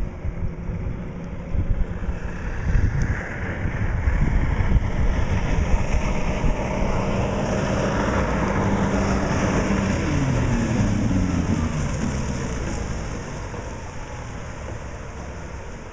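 Outboard motor of a small race boat running at full speed on a pass-by: the engine note swells as the boat approaches, drops in pitch about two-thirds of the way through as it goes past, and fades as it runs away.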